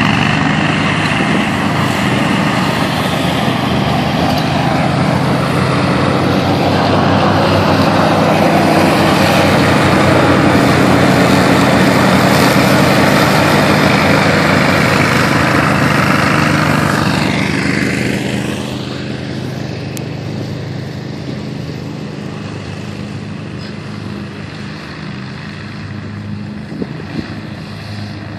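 Hustler Super Z zero-turn mower's engine and spinning deck blades running at full speed while it cuts tall dry grass. The sound is loud and steady, then gets quieter from about two-thirds of the way through as the mower moves away.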